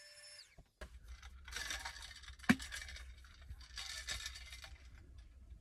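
A small handheld electric air pump's whine, inflating a pillow, drops in pitch and stops just after the start. Then two stretches of rustling, scraping handling noise follow, with one sharp click between them.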